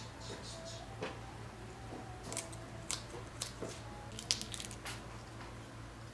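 Kitchen scissors snipping through the shells and legs of fresh raw shrimp: a scatter of short, crisp crunching snips at uneven intervals, the sharpest about four seconds in.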